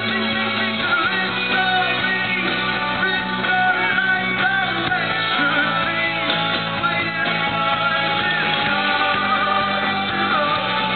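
Indie rock band playing live, with guitars and a lead vocal singing over the band.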